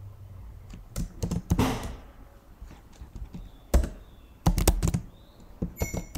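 Computer keyboard typing: scattered keystrokes in short clusters, with quiet pauses between them.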